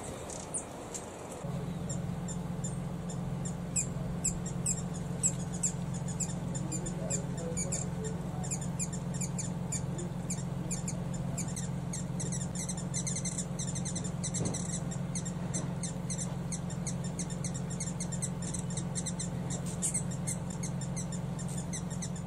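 Rapid, irregular series of sharp, very high-pitched chip notes, typical of a hummingbird calling. A steady low hum comes in about a second and a half in and runs under the chips.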